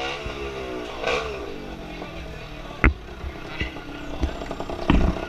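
Small 115cc racing motorcycle engine ridden at low speed, revving up and back down about a second in, then running steadily. Two sharp knocks cut through, one near the middle and one near the end.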